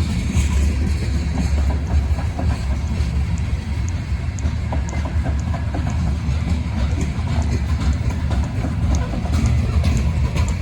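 Freight cars of a grain train rolling past: a steady low rumble of wheels on rail, with scattered sharp clicks and short squeaks of steel wheels over the track.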